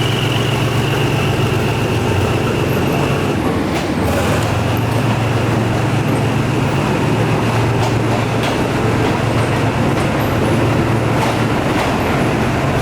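A State Railway of Thailand GE diesel locomotive's engine running steadily with a deep low rumble and a high steady whine over it. A few sharp knocks sound now and then.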